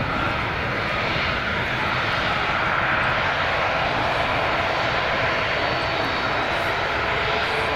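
Airbus A380 jet engines running as the airliner moves along the ground: a steady rush of jet noise with a faint high whine on top.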